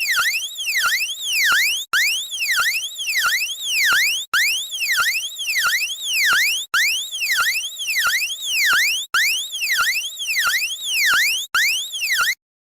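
Electronic emergency alert siren tone: quick up-and-down pitch sweeps followed by a longer whoop, the pattern repeating about every two and a half seconds with a short break between cycles. It cuts off suddenly near the end.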